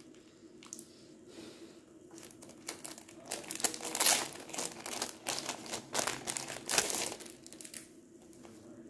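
Clear plastic packaging crinkling and rustling as a pad of patterned craft paper is handled and slid out of its sleeve. The rustling starts a few seconds in, runs for about four seconds and is loudest in the middle.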